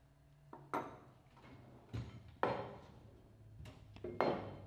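Steel special tools being handled and set down on a wooden workbench: about five separate knocks and clinks of metal on wood and metal.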